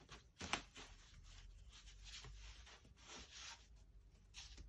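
Faint rustling and rubbing of cardboard being handled, with two light knocks in the first second.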